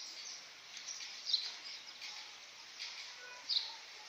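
Birds chirping: a few short, high, falling calls, two of them standing out about a second in and near the end, over a steady outdoor hiss.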